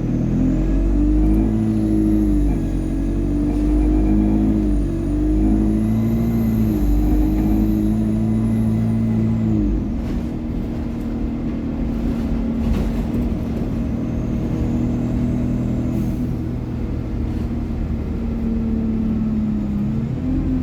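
ADL Enviro200 bus's engine and Allison automatic gearbox running under load, the pitch rising and dropping back as it changes gear, with a high turbo whine rising and falling above it. About ten seconds in the engine settles to a steadier, lower drone, and the turbo whine swells once more briefly.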